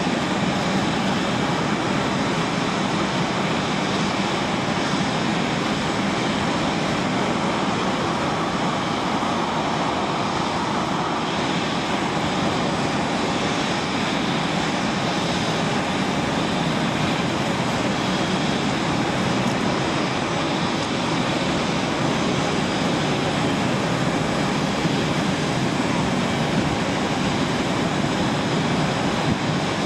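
Airbus A350-900's Rolls-Royce Trent XWB jet engines running at taxi idle as the airliner rolls slowly across the apron: a steady rushing noise.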